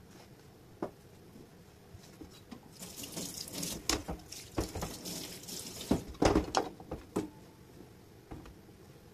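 Tap water running onto a wooden cutting board in a stainless-steel sink as the board is rinsed, for about three seconds. The board knocks several times against the sink, the loudest knocks about six seconds in.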